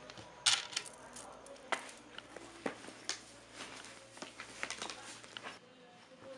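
Handling noise of a camera being picked up, turned about and set down: a string of sharp clicks and knocks, the loudest about half a second in, dying away a little before the end.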